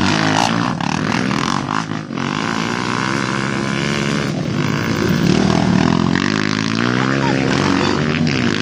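Several enduro motorcycle engines running and revving, loud and continuous, their pitch rising and falling.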